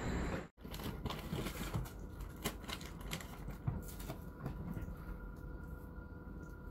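Scattered light clicks and taps, irregular, with one sharper tap a little before the end, over a faint steady hum.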